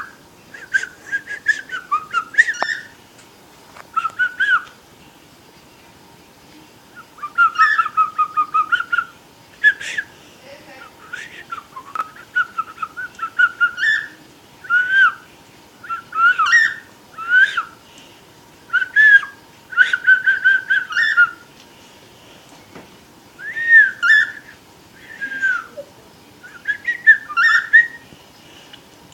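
Pet cockatiel whistling its song in short phrases of quick chirping notes and gliding whistles, with brief pauses between phrases.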